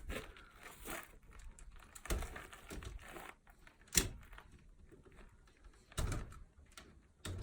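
Scattered clicks and knocks of hands working on a circuit breaker in an electrical panel, the sharpest about four seconds in and two more near the end.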